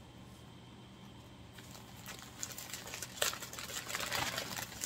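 Wrapping paper crinkling and rustling as an item is unwrapped by hand, starting about one and a half seconds in, with one sharper crackle about three seconds in.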